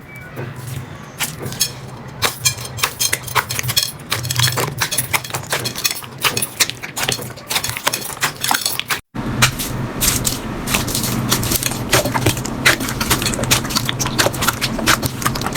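Slime being squeezed and poked, giving many quick, irregular crackling pops and clicks over a low steady hum, with a brief cut to silence about nine seconds in before the popping resumes.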